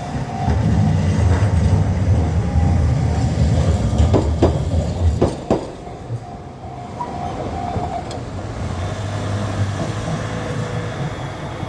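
A train rumbling heavily over a level crossing, its wheels clacking over the rail joints a few times about four to five seconds in, while the crossing bell rings steadily. The rumble drops away after about five and a half seconds, and the bell stops about eight seconds in.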